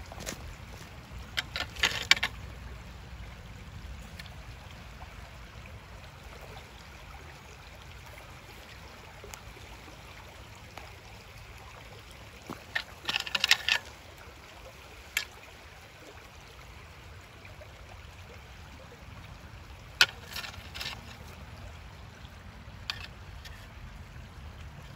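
Stones clacking and gravel crunching underfoot on a rocky creek bed, in a few short bursts of sharp clicks, the loudest about 2 and 13 seconds in, over a steady faint background hiss.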